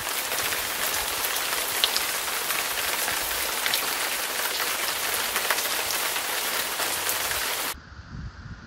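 Steady rain hiss with scattered sharper drop ticks, cutting off abruptly about eight seconds in.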